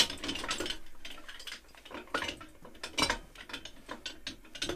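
Metal clamps being picked up and handled, making a run of irregular clicks and clatters.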